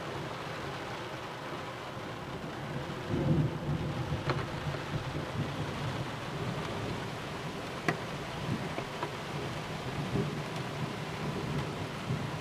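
Steady rain, heard through a nearly closed roof window, with thunder rumbling low from about three seconds in and rolling on through the rest. A couple of sharp clicks sound above the rain.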